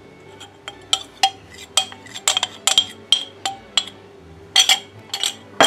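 A metal ladle clinking against a metal saucepan of cooked strawberries as starch slurry and sugar are poured in. The clinks are sharp and irregular, several a second, each with a short ring, and the loudest come about a second before the end.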